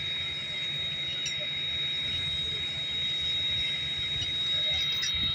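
Santa Fe 2926, a 4-8-4 steam locomotive, standing with a steady high-pitched whine over a hiss and a low rumble.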